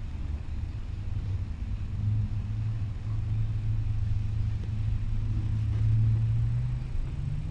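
A low, steady rumble that grows stronger about two seconds in and eases off near the end.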